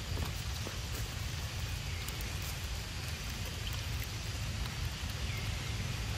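Rain falling on wet stone paving: a steady hiss with scattered drip ticks, over a steady low rumble.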